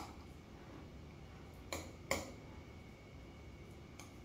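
Metal spoon clicking lightly against a ceramic ramekin as cooked arborio rice is pressed down into it: three short clicks, two close together in the middle and one near the end, over quiet room noise.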